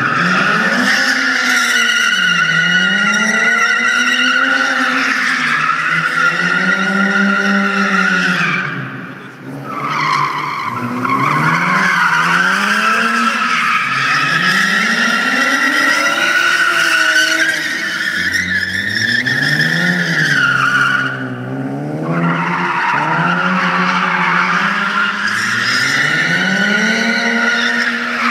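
A car drifting in circles, its tyres squealing continuously while the engine revs rise and fall every couple of seconds. The squeal breaks off briefly twice and then resumes.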